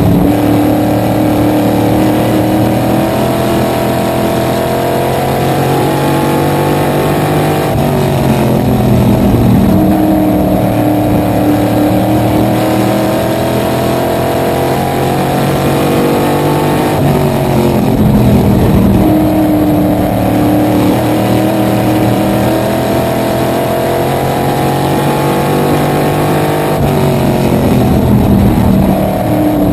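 Small-block V8 of a Small Block Supermodified race car at racing speed, heard from the cockpit. The engine note climbs down each straight and drops as the driver lifts for the turns, three times, roughly every nine to ten seconds.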